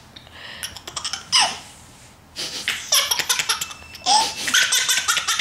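Young child laughing hard in several bursts, with short pauses between them.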